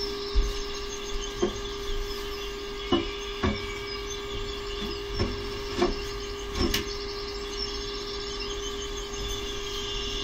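Several scattered knocks and clicks, about seven of them in the first seven seconds, over a steady hum, with faint bird chirping.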